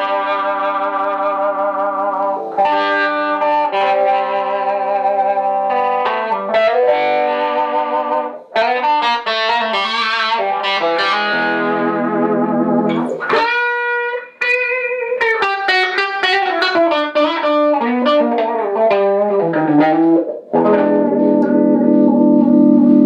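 PRS electric guitar played through a vintage DeArmond 1802 Weeper wah pedal and a small amp, with the wah rocked by foot. Held chords give way to single-note lines about six seconds in, and chords return near the end.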